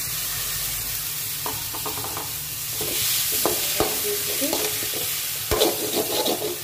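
Boiled, chopped green beans sizzling in oil in a metal kadai while a steel spoon stirs and scrapes them around the pan in repeated strokes, the scraping loudest shortly before the end.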